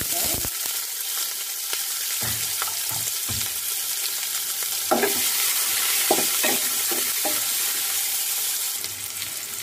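Freshly added chopped onions sizzling in hot oil in a nonstick kadai, in the early sauté stage of a tempering. A spatula stirs and scrapes the pan in short strokes, in two spells about two and five seconds in.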